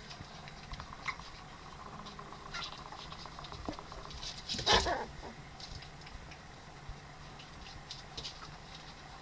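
Ryukyu Inu puppies moving about on a bare wooden floor, their claws pattering and scratching in small scattered clicks. About halfway through comes one short, louder noise.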